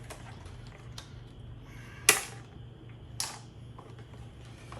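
Hand tools clicking against metal on a motorcycle's fork top: a few light ticks, then two sharp metallic clicks about a second apart, over a steady low hum.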